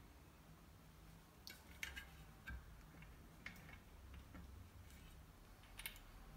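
Faint, scattered metallic clicks and taps from an e-bike's hub-motor axle, washers and nut being worked by hand into the front fork dropouts. The axle is not yet seating because a washer is catching on the dropout.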